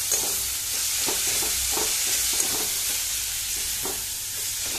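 Browned chopped onions sizzling in a hot kadai with a little mustard oil: a steady frying hiss with a few light scrapes as they are stirred.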